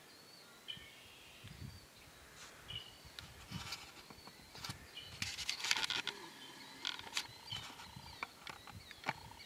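Birds calling repeatedly with short high chirps, some sliding in pitch, over scattered clicks. A brief noisy rush about halfway through is the loudest part, and a faint steady tone comes in just after it.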